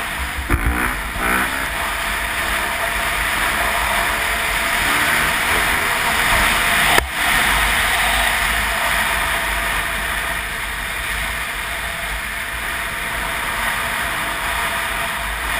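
Honda CRF250R dirt bike on the move, heard from a helmet-mounted camera: its single-cylinder four-stroke engine runs steadily under a steady rush of wind noise. There is a single sharp click about seven seconds in.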